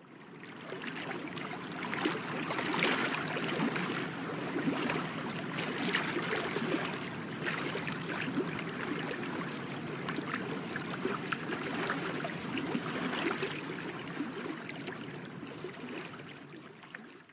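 Water lapping and splashing, an even noisy wash with many small crackling clicks, fading in at the start and fading out near the end.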